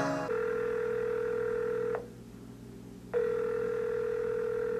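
Telephone ringing tone: two long, steady rings, each about two seconds, with about a second's gap between them.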